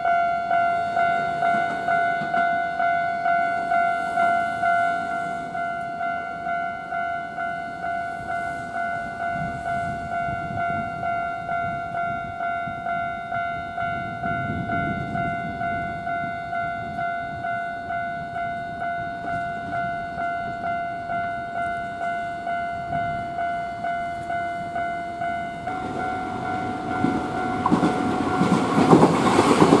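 Japanese railroad crossing warning bell ringing its repeating 'kan-kan' at about two strikes a second. Near the end the running noise of a Nankai 1000 series electric train rises over the bell as the train reaches the crossing.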